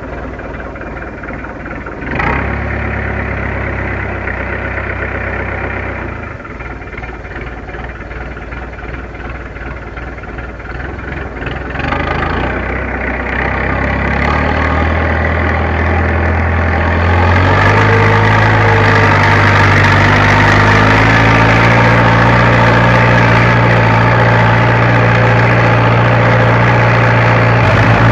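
Fiat Agri tractor's diesel engine heard from inside the cab, running at low speed with a knock about two seconds in, then revving up from about halfway and settling at a steady, louder working speed.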